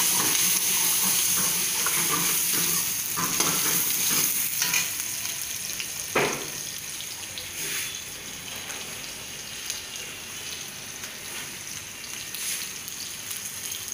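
Diced capsicum frying in hot oil in a wok: a steady sizzle, louder for the first few seconds and then settling, as it is stirred, with a few knocks of the spatula against the pan.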